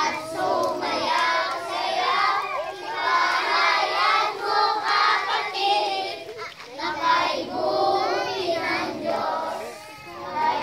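A crowd of children singing a worship action song together, in phrases with short breaks between them.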